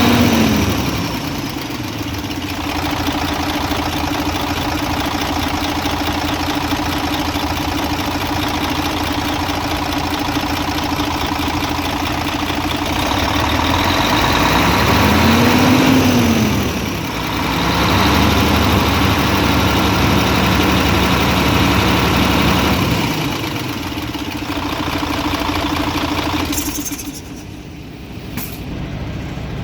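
Mercedes Actros MP2 truck diesel engine running at idle. The revs rise and fall briefly twice, once at the start and again about halfway through, and the sound drops away near the end.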